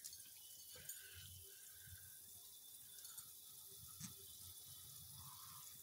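Faint bubbling of a spiced gravy simmering in a frying pan, with a soft click about four seconds in.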